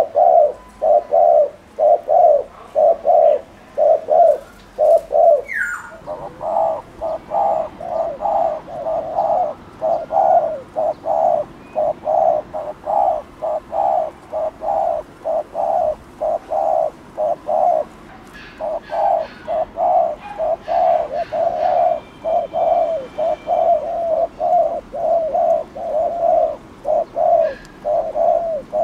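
Spotted dove giving its rapid 'gù' bowing coo: short, low coos repeated about twice a second in long runs, pausing briefly twice. Faint higher chirps of small birds sound now and then.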